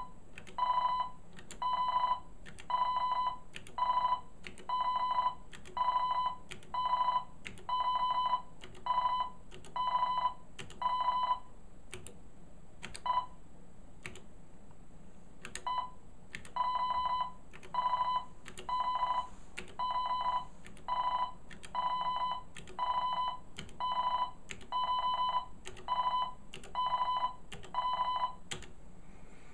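East German speech/Morse generator sending Morse code as a beeping tone: evenly spaced beeps about one and a half a second, breaking off for a few seconds about halfway through apart from two short blips.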